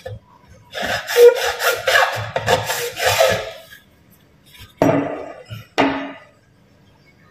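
A hand tool scraping PVC pipe in quick strokes, about four a second for some three seconds, then two single strokes about a second apart.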